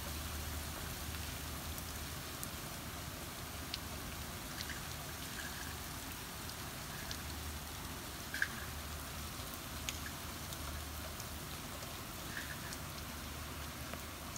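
Steady rain falling, with scattered sharp ticks of drops striking hard surfaces.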